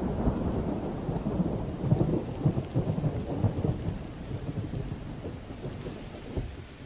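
Rolling thunder rumbling low and slowly fading away, dying out near the end.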